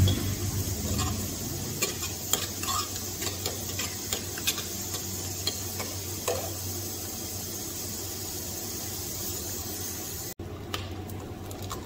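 Chopped onion and garlic with cumin sizzling in mustard oil in a kadhai, a steel ladle stirring and scraping against the pan in scattered clicks. The sizzle drops away abruptly near the end.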